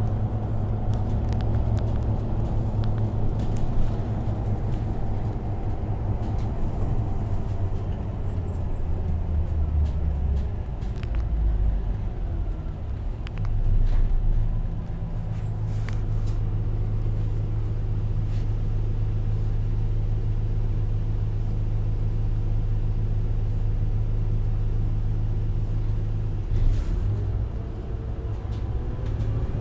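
Diesel engine running with a steady low rumble. Its low drone shifts slightly a few times.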